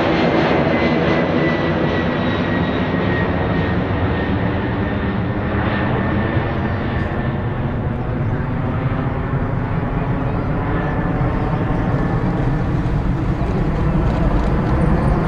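Jet airliner engines running loud and steady, with a high whine that slowly falls in pitch.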